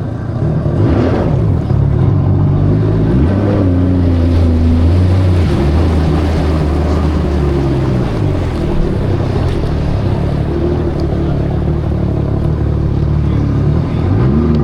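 Jet ski engine running under throttle, its pitch climbing about three seconds in and dipping briefly near the end as the rider works the throttle.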